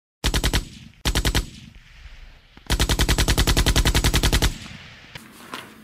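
Bursts of automatic machine-gun fire: two short bursts, then a longer burst of nearly two seconds at about a dozen rounds a second, each trailing off in echo.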